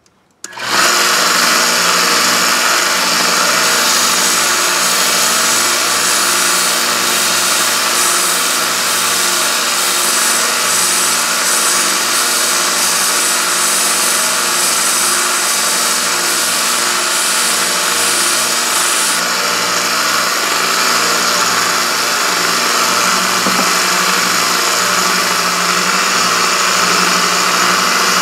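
Small narrow-belt sander running steadily, its abrasive belt grinding a steel chisel. It comes in about half a second in, a constant motor hum with a bright, hissing grind of steel on the belt.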